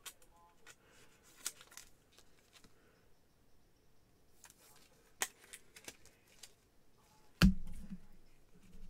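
Trading cards being handled with gloved hands: scattered light clicks and taps, with one louder thump about seven and a half seconds in.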